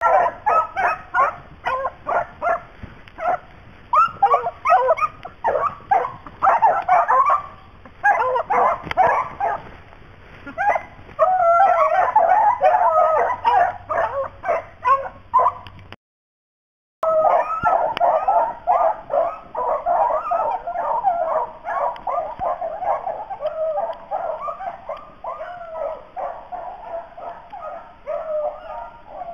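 A pack of rabbit hounds baying and yelping in a fast, dense string of overlapping barks as they run a rabbit on the scent. The cry drops out for about a second near the middle, then carries on.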